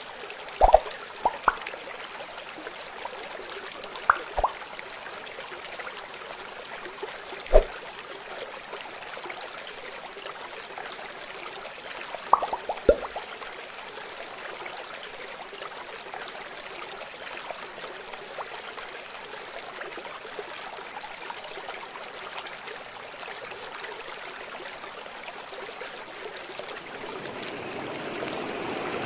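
Steady trickling, running water with a few sharp drips or plops in the first half; the water grows louder near the end.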